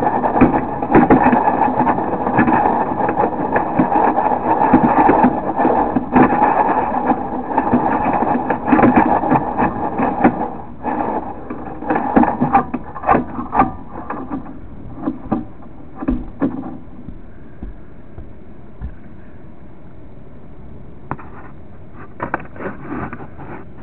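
Sewer inspection camera's push cable being fed down the drain line, rattling and scraping steadily with many clicks, then dying down about two-thirds of the way through as the camera reaches the end of its cable, leaving a faint steady hum and a few clicks.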